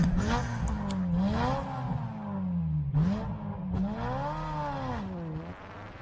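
A vehicle engine revving up and down repeatedly, its pitch rising and falling about once a second, fading out toward the end.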